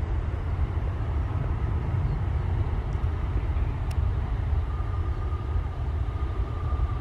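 Boeing 777-300ER's GE90 jet engines running at low power as the airliner taxis, a steady low rumble. A faint steady whine comes in about two-thirds of the way through.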